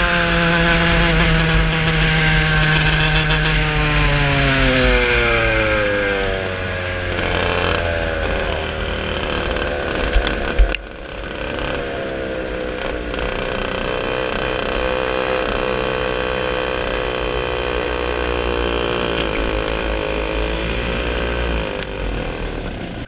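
Racing kart engine heard from the driver's seat, falling in pitch as the kart slows over the first few seconds, then running at low, steady revs as it rolls along at low speed. There is a brief sharp knock about ten seconds in, and the sound dies away at the very end.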